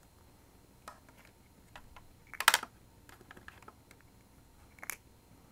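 Small plastic toy figures and accessories being handled and set down against a plastic playset: a scatter of light clicks and taps, with a louder clatter about two and a half seconds in and another near the end.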